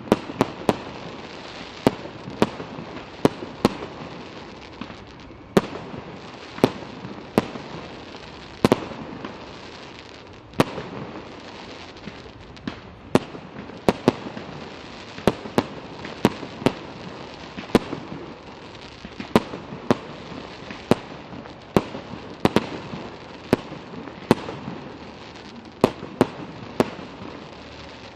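Fireworks display: irregular sharp bangs of bursting fireworks, often one or two a second and sometimes in quick pairs, over a continuous hiss between the bangs.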